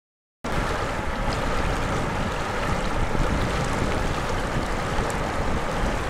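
Wind buffeting the microphone over a steady rushing of water, starting abruptly about half a second in.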